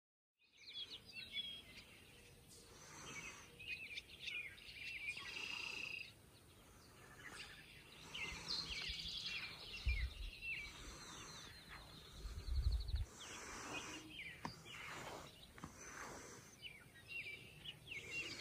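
Several songbirds chirping and singing outdoors, with short overlapping calls throughout. A couple of brief low bumps come through about two-thirds of the way in.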